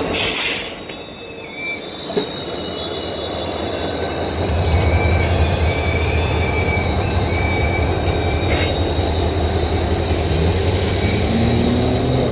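Diesel-electric locomotives rolling slowly past a road crossing, their wheels squealing against the rails in a steady high-pitched tone over the deep rumble of the diesel engines, which grows stronger about four seconds in. A brief burst of hiss comes just after the start.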